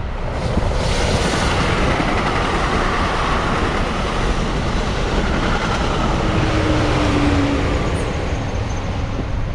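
New Jersey Transit push-pull passenger train of bilevel coaches passing at speed: a steady rush of wheel, rail and air noise, with the locomotive pushing at the rear going by near the end, where a faint steady tone joins the rush.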